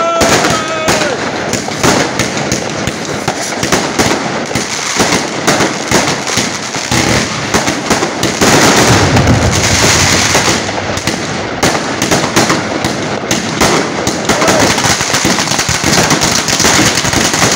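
Fireworks going off, a dense run of rapid cracks and pops one after another, with a louder, thicker stretch about halfway through.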